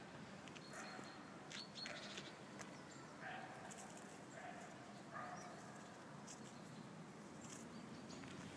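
Faint, scattered short animal squeaks and chirps.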